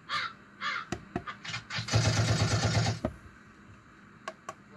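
A run of short preset sound-effect clips triggered from the V8 Plus portable mixer's effect buttons: a few brief chirps in the first second, then sharp clicks, then a dense burst with a low rumble about two seconds in that lasts about a second, and two clicks near the end.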